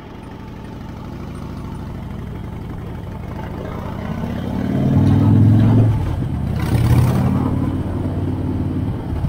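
Motorcycle engine at highway speed, heard from on the bike with wind rush. It pulls harder and rises in pitch about halfway through, dips briefly just after six seconds and climbs again, with a short gust of wind noise about seven seconds in.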